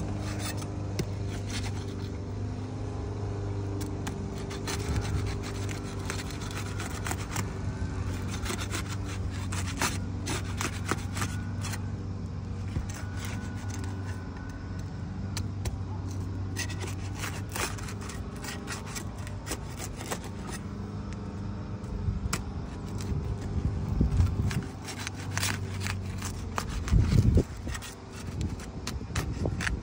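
Asphalt shingles being pried and scraped loose with a roofing tool to break their seal strips: repeated scrapes, rubs and clicks, louder near the end. A steady low hum runs underneath and fades out after about two thirds of the way through.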